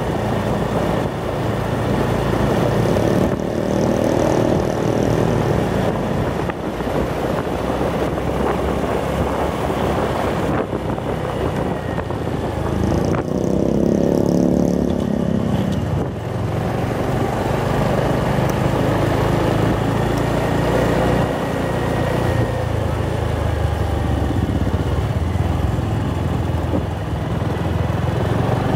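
Honda motorcycle's engine running while riding along a road, its pitch rising and falling with speed, under steady wind and road noise.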